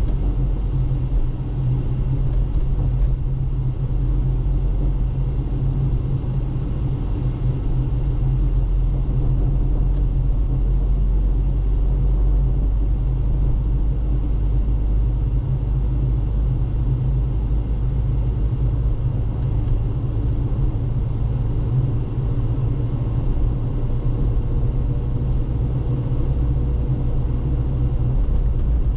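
Car driving at a steady speed: a constant low rumble of road and engine noise.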